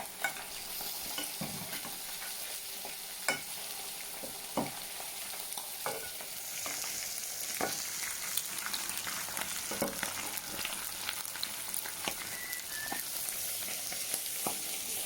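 Sourdough-battered pork cutlet deep frying in hot oil: a steady sizzle with scattered pops and crackles, a little louder from about halfway through.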